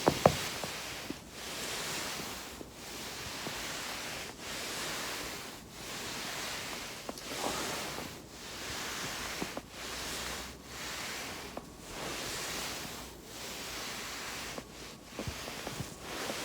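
Rhythmic swishing of a body rolling back and forth on a foam roller, one long stroke about every second and a half. Two sharp clicks come right at the start.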